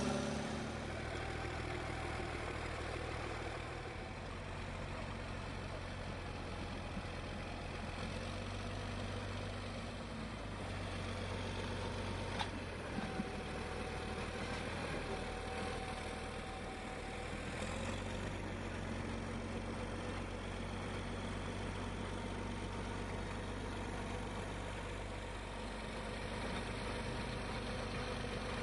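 Vehicle engine running steadily with a low hum, and a couple of small clicks about halfway through.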